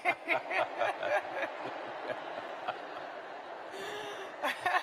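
A large seated audience talking to one another and laughing, a hubbub of many overlapping voices. A woman laughs close to the microphone in the first second or so.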